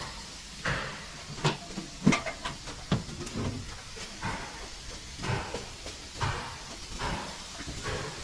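Irregular knocks and clicks of work on metal, with short bursts of hiss in between.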